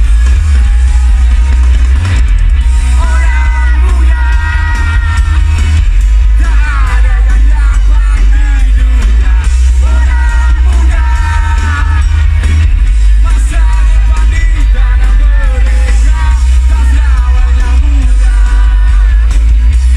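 Live band music at full volume, heavy in the bass, with a singer's voice carrying the melody through most of it.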